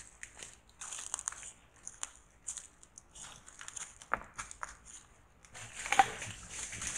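Irregular crunching and crackling in dry leaf litter from a South American tapir foraging for inajá palm fruit. About five and a half seconds in, this gives way to a busier crunching and rustling from a herd of white-lipped peccaries feeding, with one sharp loud snap about six seconds in.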